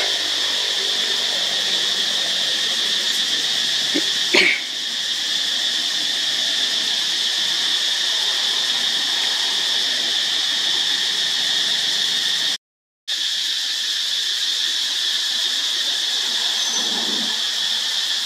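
Steady, high-pitched chorus of insects droning continuously, with one short sharp sound about four seconds in. The track cuts out completely for a split second about two-thirds of the way through.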